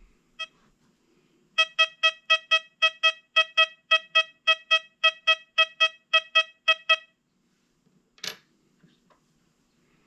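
XP Deus 2 metal detector giving its target tone for a bronze US two-cent piece: one short beep, then a train of about twenty identical short beeps at one steady pitch, roughly four a second, for about five seconds. A single knock follows near the end.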